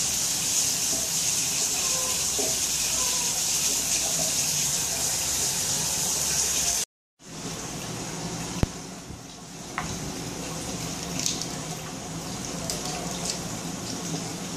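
Steady hiss from a pot of chicken and vegetables steaming on the stove, which cuts off suddenly about seven seconds in. Then quieter handling: cooked chicken pulled apart by hand on a wooden cutting board, with a few small clicks and scrapes.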